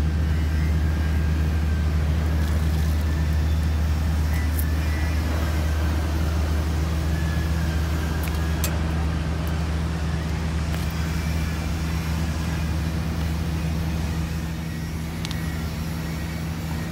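Steady low mechanical hum of a running motor, with a few faint clicks.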